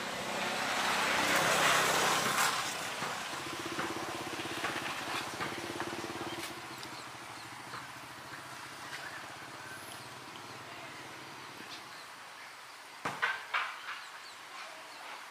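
A motor vehicle passing, its noise swelling and fading over the first three seconds, followed by a low steady hum that dies away. A few sharp knocks come near the end.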